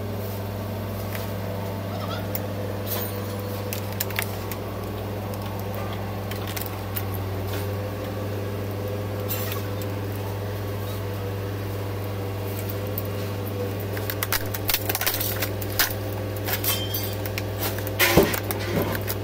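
Laptop parts being handled and pulled apart: scattered clicks, snaps and clatter of small plastic and metal pieces, busier in the last few seconds, over a steady low hum.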